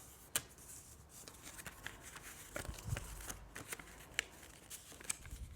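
A sheet of paper being folded and creased by hand: faint rustling and crinkling with scattered small clicks, and a couple of soft low bumps.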